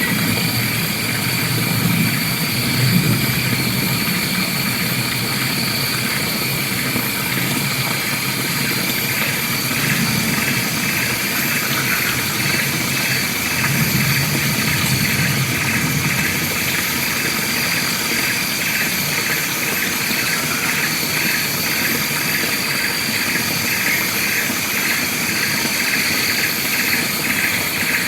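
Forest ambience: a steady high insect drone, with a fast, evenly repeated chirping that joins about nine seconds in and runs on, over a low rumble.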